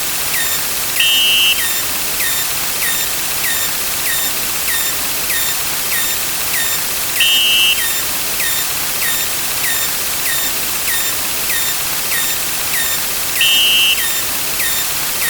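A stack of looped digital sound effects. A constant hiss runs under short repeated pops, about two and a half a second, and a half-second two-tone electronic beep sounds three times, roughly six seconds apart.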